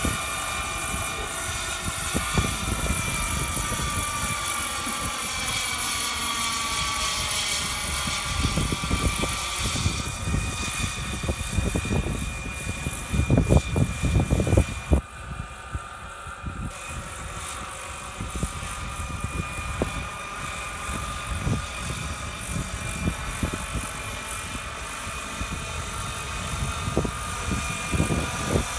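Turbine-powered RC scale model helicopter (Airbus EC135) in flight: a steady, high turbine whine of several tones that slowly bend up and down, over the rotor's rumble. About halfway through come a few loud low rumbling bursts, and then the high whine briefly fades.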